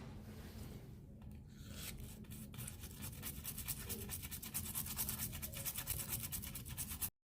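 Fast, scratchy rubbing strokes on a speaker amplifier's circuit board during resistor rework. They build up about two seconds in and cut off suddenly near the end.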